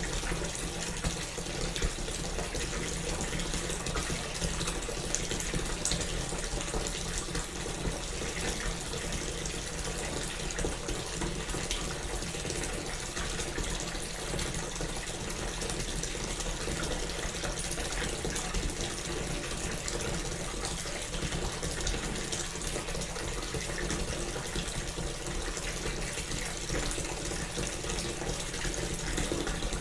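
Bath tap running steadily, water pouring into a filling bathtub, with a small room's echo.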